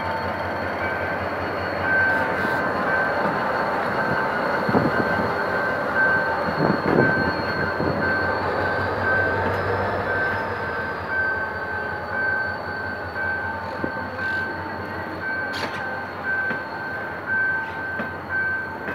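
GM GT22CW diesel-electric locomotive pulling a passenger train past at low speed as it arrives at the station. The engine rumbles, wheels run on the rails, and a thin high wheel squeal runs throughout. Over it a level-crossing warning signal beeps at an even rhythm.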